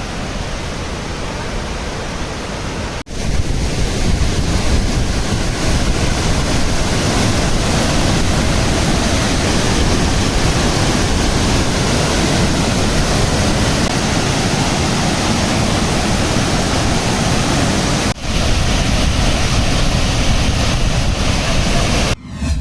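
A waterfall's falling water: a steady, loud rush that breaks off for an instant about three seconds in and again near the end.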